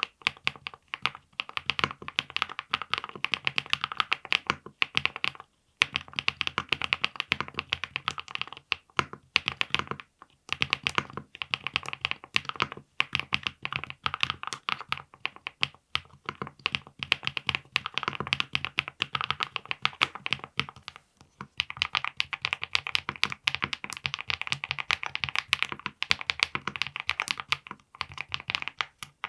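Steady, fast typing on a VXE75 mechanical keyboard with a PC plate and full foam, each keystroke a dense clack. For about the first twenty seconds it has Ania axis switches; after a short break it has HMX Cheese switches lubed with Krytox 205.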